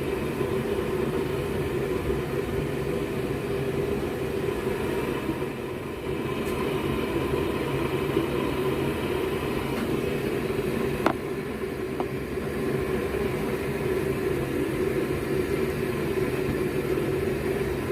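Homemade propane forge burners running steadily, a constant rushing hiss of gas and flame, with a brief light tap a little past the middle.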